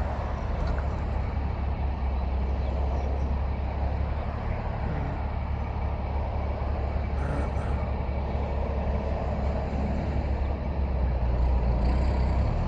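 Steady low rumble of road traffic and idling motor vehicles, with no sudden events.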